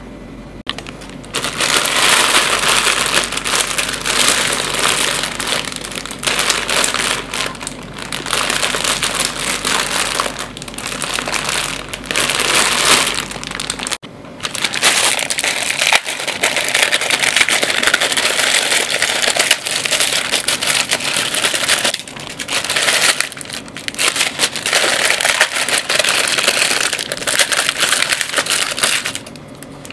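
Plastic instant-noodle packets crinkling loudly as hands handle them and tear them open. The crinkling comes in long stretches broken by short pauses.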